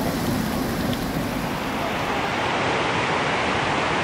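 Steady rush of floodwater, turning to a brighter hiss about two and a half seconds in.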